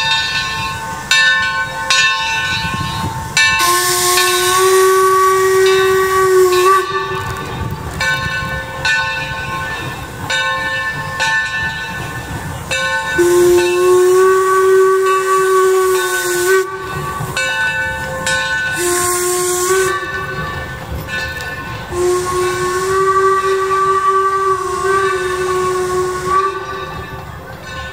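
Torch Lake steam locomotive's whistle blowing two long blasts, a short one and a long one, the grade-crossing signal, over hissing steam and the regular beat of its exhaust as it pulls out with its train.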